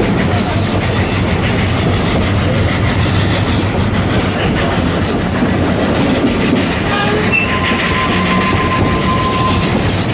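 Narrow-gauge steam train carriages running steadily over the rails, heard from a carriage window: a constant rumble with clickety-clack of the wheels. A thin steady high tone sounds for about three seconds near the end.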